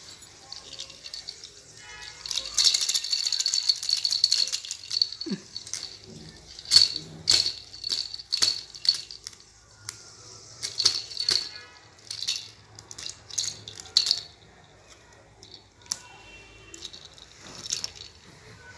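Orange plastic baby rattle being shaken in short, irregular bursts, its beads rattling with a bright, sharp sound.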